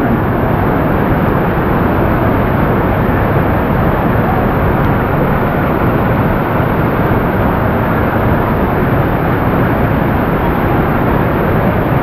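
Waterfall in strong monsoon flow: a loud, steady rush of falling water that is described as deafening.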